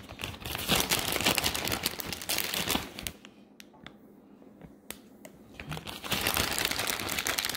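Plastic bag of shredded cheese crinkling as it is handled. It is loud for about three seconds, quieter for a few seconds, then loud again near the end.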